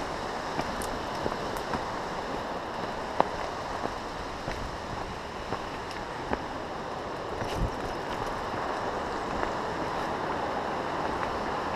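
Steady rushing noise as the bike rides along a rough dirt trail, with scattered clicks and knocks, one heavier thump about two thirds of the way through, as it jolts over rocks and roots.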